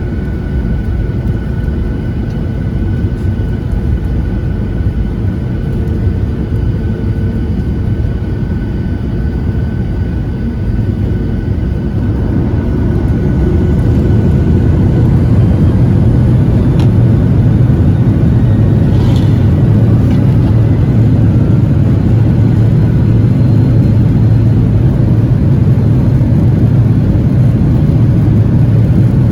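Cabin noise of a Boeing 737-800 with its CFM56-7B jet engines running: a steady low rumble with a faint high tone, heard from inside the cabin. The rumble grows louder about 13 seconds in and then holds.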